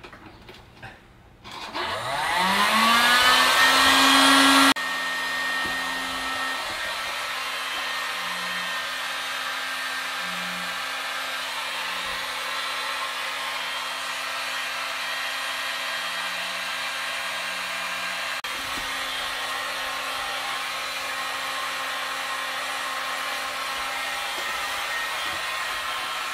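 A 1550-watt, 13-amp electric heat gun starts up about a second and a half in, its fan rising in pitch as it spins up. It runs loud for a few seconds, then suddenly drops to a quieter, steady blowing for the rest of the time. It is powered through the timer-switched outlet.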